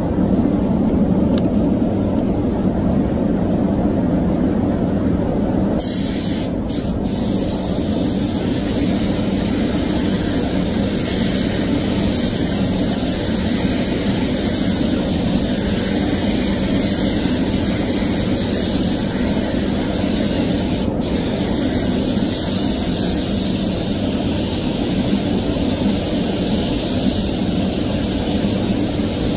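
Steady air noise of a paint spray booth's ventilation. About six seconds in, a spray gun's compressed-air hiss starts and carries on as white paint is sprayed, broken briefly a few times when the trigger is released.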